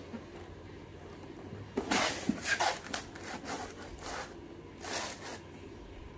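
Cardboard box rubbing and scraping as hands turn it over on a surface, in three short scratchy bursts from about two seconds in to near the end.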